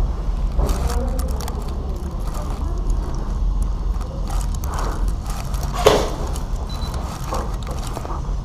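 Steady low rumble with scattered clicks and rattles, and one sharper knock about six seconds in.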